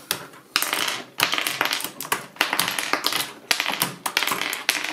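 Rapid plastic clicking and clatter of a mechanical keyboard being worked by hand: keycaps pulled off the switches and tossed onto the desk, starting about half a second in.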